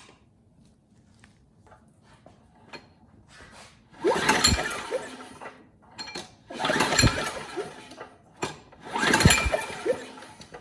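Three pulls of the recoil starter on a Briggs & Stratton Quantum mower engine, each about a second and a half long. The engine turns over without firing because there is no spark.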